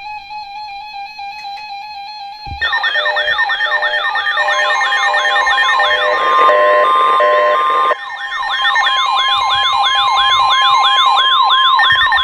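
Several weather alert receivers sounding their alarms at once for a severe thunderstorm warning. A steady tone plays first. About 2.6 s in, a warbling siren-like alarm joins, sweeping up and down about two to three times a second, along with short pulsed beeps and a steady high tone. The steady high tone is likely the NOAA Weather Radio warning tone.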